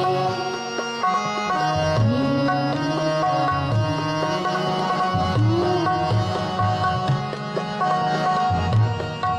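Background music: an instrumental passage of Indian devotional music, with a steady hand-drum beat under a bending melody line.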